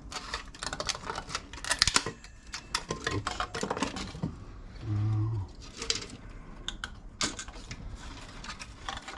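Small hard parts clicking and clattering as an electronic device is taken apart by hand for scrap, with a short low hum about five seconds in.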